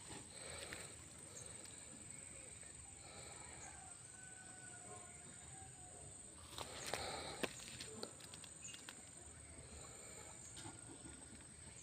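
Faint outdoor ambience: a steady high-pitched whine with scattered faint bird calls. A short noisy burst comes about seven seconds in, followed by a few sharp clicks.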